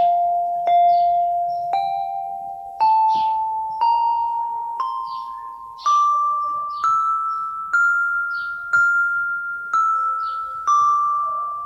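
Yamaha PSR-32 electronic keyboard playing a scale slowly, one note at a time at about a note a second, climbing step by step and then turning back down near the end. Each note starts sharply and fades.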